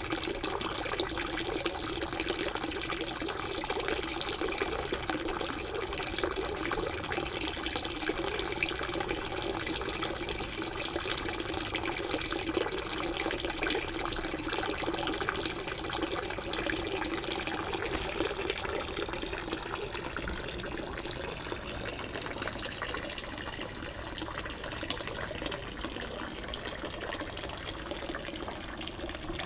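Dolphin-statue pond fountain pouring a thin stream of water into the pond: a steady splashing trickle, a little quieter over the last third.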